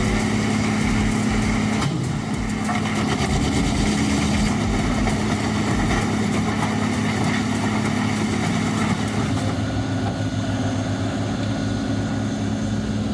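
Bandit Beast 4680 wood grinder's large diesel engine running steadily with a low, even hum. The high hiss thins out about ten seconds in.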